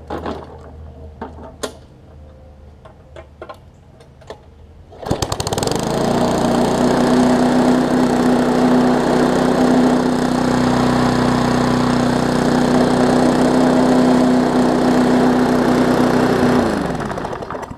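Briggs & Stratton Classic single-cylinder flathead push-mower engine comes up to speed with a sudden surge about five seconds in, runs loud and steady for about ten seconds, then shuts off and spins down near the end. A few sharp clicks come before it. The engine is on a thin, cheap steel deck that makes it vibrate noticeably.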